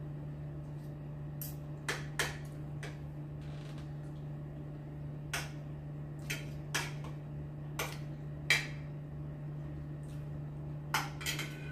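Spoon and fork clinking against dishes while eating: scattered sharp clinks at irregular moments, over a steady low hum.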